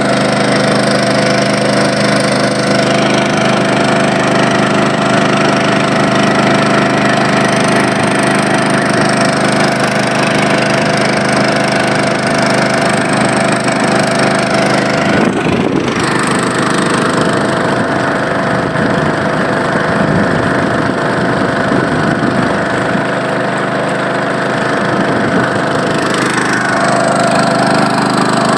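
Small boat engine running steadily and driving a wooden longboat along a river. Its note shifts abruptly about halfway through, and dips then rises near the end.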